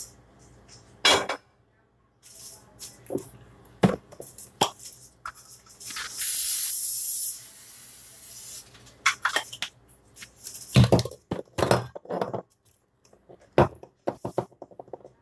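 Kitchen clatter of knocks and clinks, with a steady spraying hiss about six seconds in that lasts over a second and then trails off more faintly.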